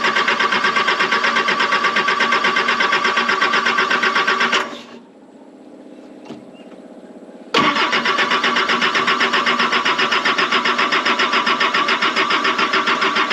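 Starter cranking the John Deere excavator's Isuzu diesel engine in two long attempts, with a rapid, even chug of about five beats a second and a pause of a couple of seconds between them. The engine turns over but does not catch, on a battery that is running down.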